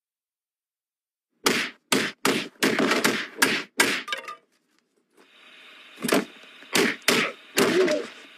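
Cartoon fight sound effects: a quick run of about eight whacks and thuds of a beating, then after a short pause a steady low hum with four more heavy hits.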